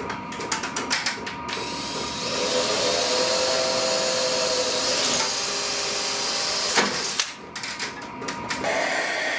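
Cordless drill boring holes through a metal roof-rack bracket. A quick run of clicks is followed by about five seconds of steady drilling, which stops about seven seconds in. After a few more clicks the drill starts again near the end.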